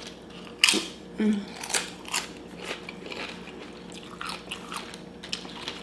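Tortilla chip with salsa being bitten and chewed up close: a run of sharp crunches, loudest in the first two seconds, then smaller crunches as the chewing goes on.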